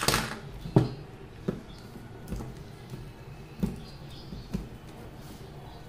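Handling a tape-sealed cardboard tube and a plastic box cutter on a wooden table: a sharp click at the start, then light scattered knocks and taps, with faint scratching as fingernails pick at the packing tape on the tube's end.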